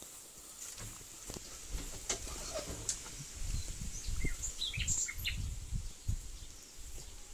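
Outdoor ambience: a few short bird chirps in the middle, over a low, uneven rumble on the microphone.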